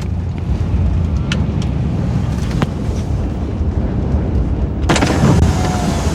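Car driving at about 50 mph, with a steady low road-and-engine rumble and a few faint clicks. About five seconds in, a sudden louder rush of wind noise sets in.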